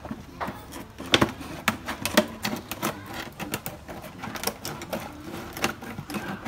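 Scissors cutting through a large plastic bottle: irregular sharp snips and crackling of the stiff plastic as it is cut and turned.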